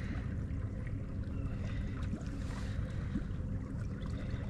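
Wind and waves: a low steady rumble with a few faint ticks.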